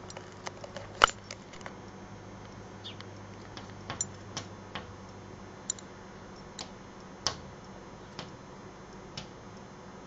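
A bird's beak tapping on window glass: sharp, irregular clicks, roughly one or two a second and uneven in strength, the loudest about a second in.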